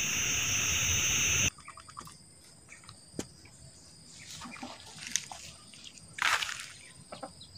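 A steady hiss that cuts off suddenly after about a second and a half, then quiet yard ambience with hens pecking feed from a concrete bowl: a sharp tap about three seconds in, scattered small clicks, and a short harsh sound just after six seconds.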